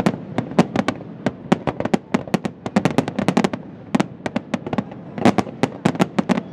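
Aerial firework shells bursting in a fast string of sharp bangs, several a second, with a brief lull about five seconds in.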